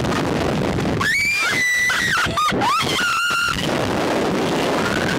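Loud wind rushing over the microphone as riders are flung on a reverse-bungee slingshot ride, with a woman's long high-pitched screams from about a second in that rise and fall for roughly two and a half seconds.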